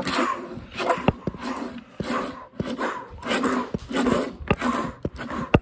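A young child making growly engine noises with his mouth in short repeated bursts, about two a second, while pushing a small toy car across a tabletop, with a few sharp taps of the car on the table.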